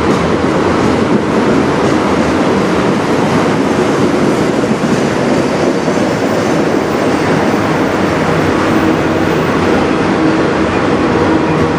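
Autorack freight cars rolling past close by: the steady, loud running noise of steel wheels on the rails.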